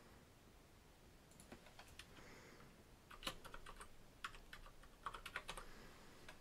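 Faint keystrokes on a computer keyboard, a quick run of taps from about three seconds in as a word is typed.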